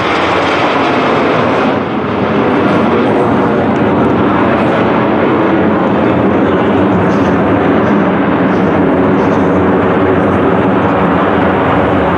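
Formation of Aermacchi MB-339 PAN jet trainers flying overhead, their turbojet engines giving a loud, steady rushing noise.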